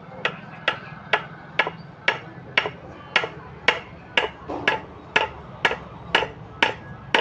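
Hammer tapping metal on metal at an even pace, about two ringing strikes a second, driving the thin primary lock ring down onto the splined shaft of a Mahindra tractor's PTO gearbox to seat it.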